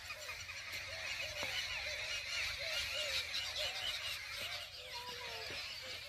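A dense chorus of many birds calling at once: a constant mass of high chirps, with lower rising-and-falling calls repeating several times a second.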